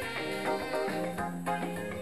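Live calypso band playing an instrumental passage, with several instruments sounding together.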